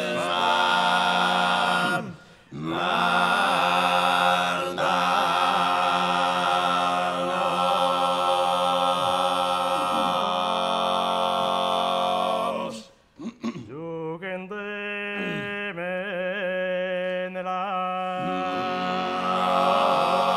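Sardinian four-voice canto a tenore (boghe, mesu boghe, contra and bassu) singing close together in sustained, droning chords, the bassu in its guttural throat-sung low voice. The chord breaks off briefly about two seconds in. About thirteen seconds in it drops away, leaving a quieter single voice with a wavering pitch, and the full chord comes back in loudly near the end.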